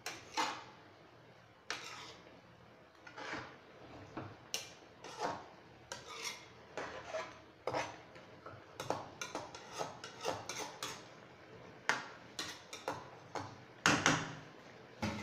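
Metal spoon scraping and knocking against a frying pan while stirring chicken pieces in sauce, in irregular strokes with a louder knock near the end.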